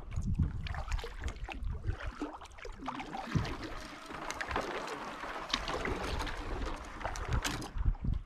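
Canoe being paddled through reeds: paddle strokes with light splashes and drips, and reed stems brushing and scraping along the hull as many short swishes and ticks.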